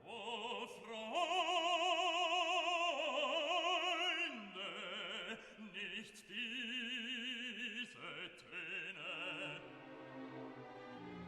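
Background music: an opera singer holding long notes with a wide vibrato over an orchestra.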